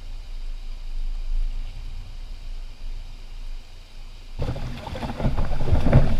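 Low wind rumble on the microphone, then about four seconds in a sudden change to louder river sound from a canoe: water and wind with irregular knocks.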